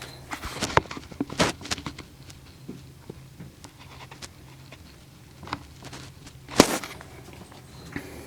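Footsteps with a run of scattered clicks and knocks in the first two seconds, a few more later, and one louder knock about six and a half seconds in.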